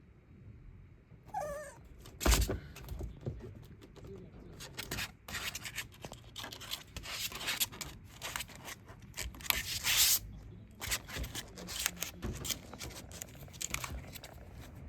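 A Pomeranian–Shiba Inu mix puppy gnawing on the bars of her cage: irregular clicks, scrapes and rattles of teeth working at the cage, with a brief high wavering squeak just before one loud sharp burst about two seconds in.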